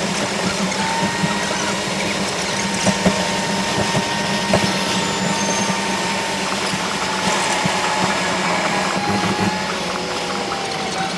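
Steady mechanical running noise with a low hum and a faint, slowly wavering whine, broken by scattered sharp clicks.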